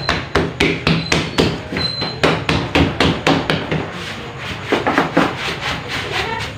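Hands slapping and patting a long log of bread dough on a stainless steel table: quick, regular slaps about three a second, a short pause, then a few more near the end, over a steady low hum.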